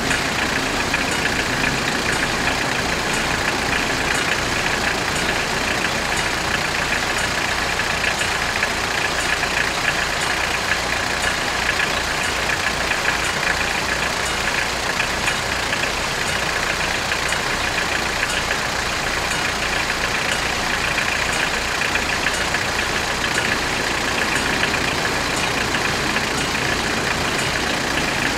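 Level-crossing warning bells ringing continuously and rapidly while the barriers are down, with vehicle engines idling underneath.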